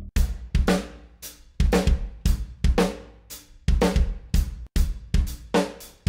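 Nu metal drum loop from Steinberg's VST Sounds & Loops Nu Metal collection: a drum kit playing a groove of kick, snare, hi-hat and cymbal hits. There is a brief break about four and a half seconds in, as the preview switches to another drum loop.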